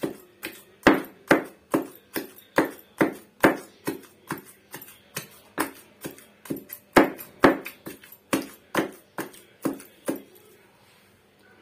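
Pestle pounding cooked beef mince, chana dal and whole spices in a mortar to a coarse paste for shami kebabs: a steady run of knocks, a little over two a second, each ringing briefly, stopping about a second before the end.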